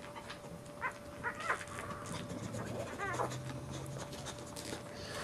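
Dog whimpering: a few short, high squeaks and whines, with a wavering, falling whine about three seconds in.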